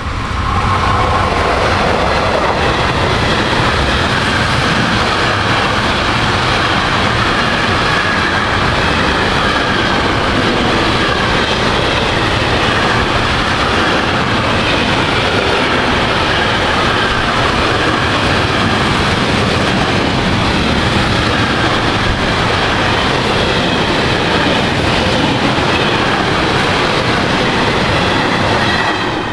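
Freight train hauled by a Siemens Taurus electric locomotive passing close at speed. The sound swells in within the first second, then a long, steady rush and rumble of swap-body container wagons over the rails with some clickety-clack.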